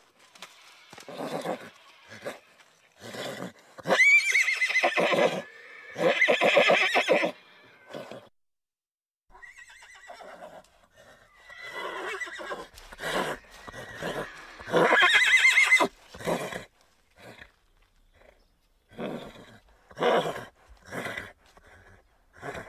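A horse whinnying several times: long, loud neighs that rise and fall in pitch, the loudest about four seconds in and again near the middle, with shorter calls and a few short sharp sounds between.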